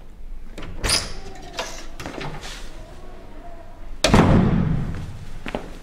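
A panelled, glazed office door being opened, with clicks from its handle and latch, then pushed shut about four seconds in, the loudest sound, its noise dying away over about a second.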